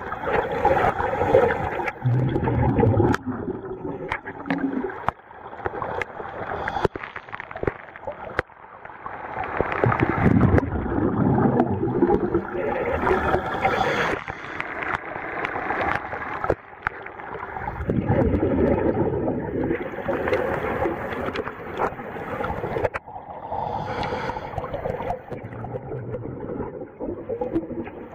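Scuba divers breathing through regulators underwater, with exhaled bubbles gurgling in rushing surges that swell and fade every few seconds, and scattered clicks.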